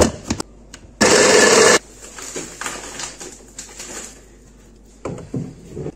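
A hand blender's motor on its chopper bowl, run in one short burst of under a second, chopping raw pumpkin pieces.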